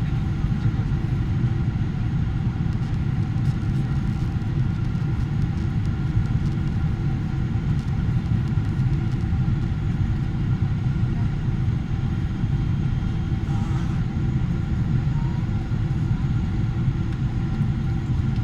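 Steady low rumble inside the cabin of a Boeing 777-300ER, from its GE90 engines and the airframe, with a few faint steady whine tones above it.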